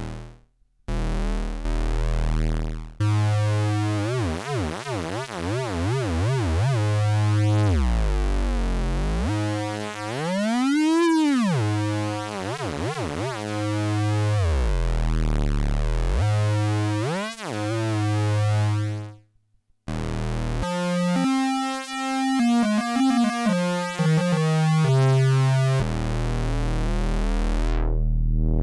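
Korg ARP Odyssey analog synthesizer playing low, buzzy held notes with no room sound, recorded straight from its output. About ten seconds in the pitch sweeps up and back down in an arch, and later comes a run of quick stepping notes before it settles back onto a held low note.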